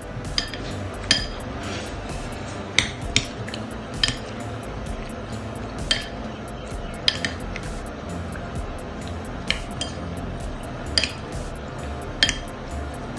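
A spoon stirring soup in a ceramic bowl, clinking against the bowl in short sharp clicks at irregular intervals, about one a second, over background music.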